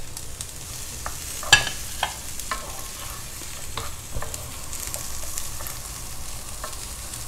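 Mixed vegetables (onion, mushroom, zucchini, carrot and cabbage) sizzling as they sauté in a frying pan, stirred and tossed with a wooden spatula. A steady hiss runs under scattered knocks and scrapes of the spatula against the pan, the sharpest about a second and a half in.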